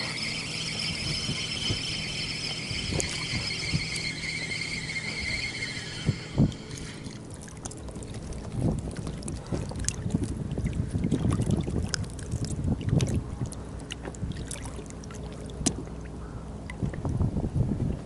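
Tsurinoya 2000 spinning reel cranked steadily, a whirring whine for about six seconds as a hooked fish is reeled in, stopping abruptly. After that come rustles, small knocks and dripping water as the fish and lure are handled at the boat's side.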